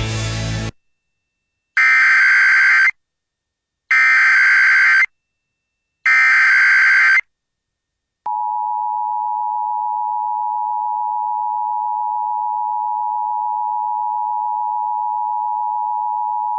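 Emergency Alert System tones: three bursts of SAME header data about a second long, two seconds apart, then a steady two-tone attention signal held for about eight seconds. Together they announce an incoming National Weather Service tornado warning.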